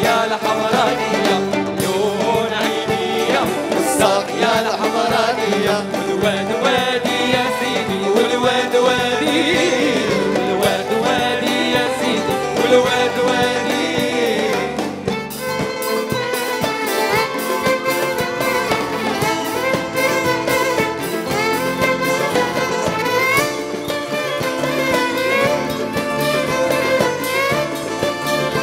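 Live band playing a song: violins carry the melody over keyboards and a percussion beat, with male singing. The music shifts to a different texture about halfway through.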